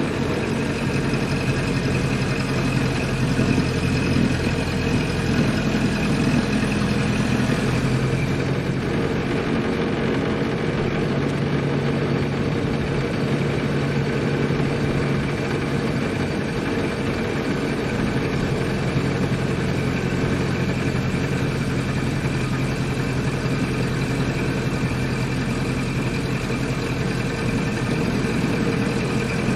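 1928 Ford Model A's four-cylinder flathead engine running steadily as the car is driven, its note shifting slightly in the first several seconds and then holding even.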